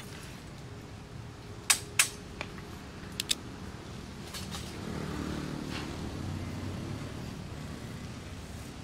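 Low steady outdoor background with a few sharp clicks (two close together, a fainter one, then a quick pair), followed by a low engine hum that swells for a couple of seconds past the middle and fades.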